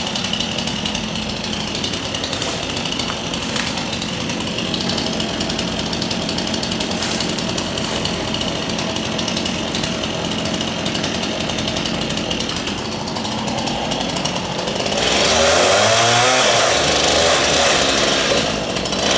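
Gas two-stroke chainsaw running steadily, then throttled up about fifteen seconds in, louder, with its pitch rising and falling. It drops back briefly near the end before running hard again.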